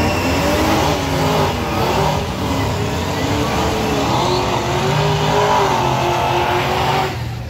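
Drag cars doing burnouts: engines revving hard, the pitch rising and falling, with the rear tyres spinning and smoking.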